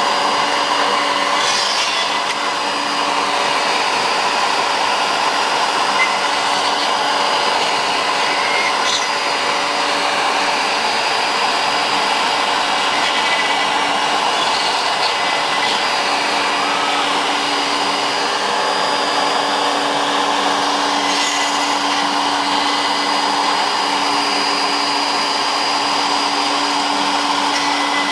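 CNC Shark HD Pro router running steadily: the spindle's motor whine over a dense rushing hiss, with its tones shifting slightly now and then.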